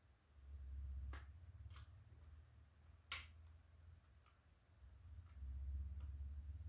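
A few short, sharp clicks and taps of small parts being handled, the loudest about three seconds in, over a low rumble that swells twice.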